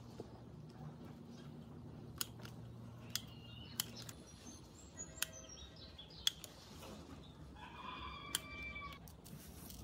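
A rooster crowing in the background about eight seconds in, with small birds chirping. Sharp metallic clicks and taps come from hand tools on the soldering work, and a low hum stops about four seconds in.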